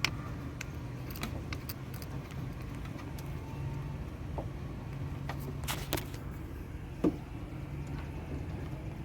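Scattered metallic clicks and clinks of hand tools on a car battery terminal as the battery is reconnected, over a steady low hum. The sharpest knock comes about seven seconds in.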